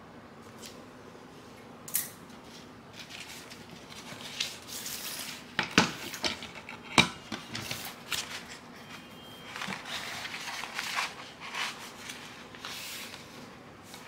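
Sheet of self-adhesive vinyl being handled: plastic crinkling and rustling, with a few sharp clicks and taps around the middle.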